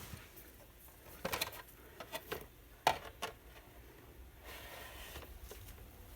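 Scattered light knocks and scrapes as a screwdriver pokes string through a drilled hole in a coffee-can bird feeder, the sharpest knock about three seconds in.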